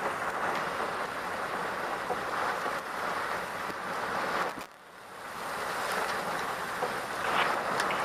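Heavy thunderstorm rain pouring down with gusting high wind: a steady rushing hiss that drops away briefly just past halfway, then builds back.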